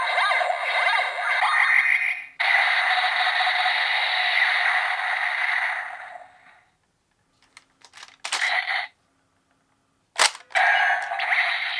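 Electronic sound effects from a GabuGabu Revolver toy gun played through its small built-in speaker. A long steady hiss-like blast fades out about six seconds in. Plastic clicks of the toy's mechanism and short bursts of effects follow.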